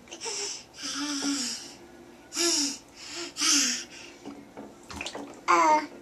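A baby's excited breathy huffs and gasps, four in the first four seconds, then a short high-pitched squeal near the end, the loudest sound.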